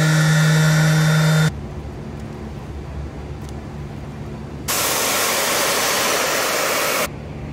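A DeWalt random orbital sander with a foam buffing pad runs with a steady motor hum for about the first second and a half, then cuts off suddenly. After a quieter stretch, a pressure washer jet hisses loudly for about two and a half seconds as it sprays mud off a golf cart tire, then stops abruptly.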